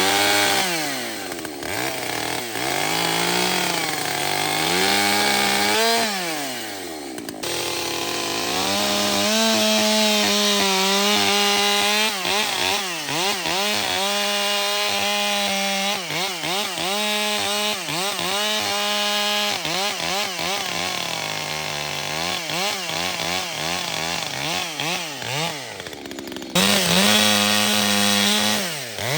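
Gas chainsaw running at full throttle through cuts in firewood, its engine pitch sagging under load in the wood and climbing back again and again. The sound changes abruptly twice.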